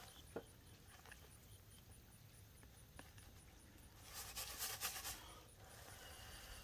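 Light breaths blown across a plastic dish of cockscomb seeds to winnow off the chaff: a soft, breathy burst lasting about a second, about four seconds in, with a couple of faint ticks before it.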